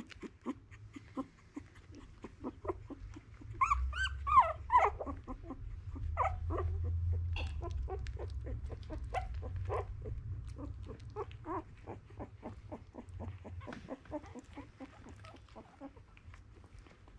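Two-week-old Miniature Australian Cattle Dog puppies whimpering: a few high, wavering squeals about four seconds in, then a long run of short, quick squeaks, about four a second, fading toward the end.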